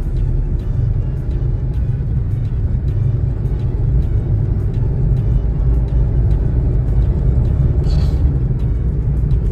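Steady low road and engine rumble inside a moving car, with background music keeping a light, steady beat. A brief hiss comes about eight seconds in.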